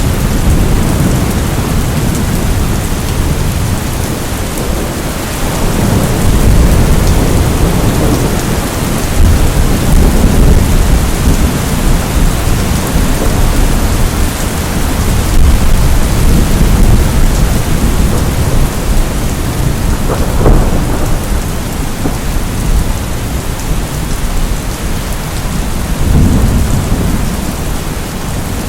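Steady, loud rain, with low rolling rumbles of thunder swelling and fading several times.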